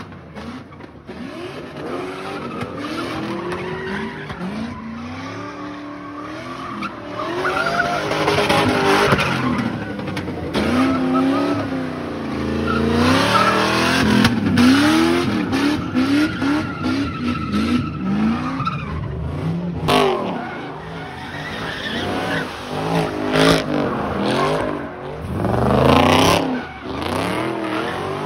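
Car engine revving hard, its pitch rising and falling over and over, with tires screeching as the car spins donuts.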